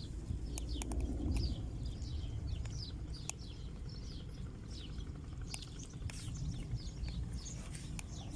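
Small birds chirping over and over in quick, short falling chirps, above a steady low rumble, with a few sharp clicks.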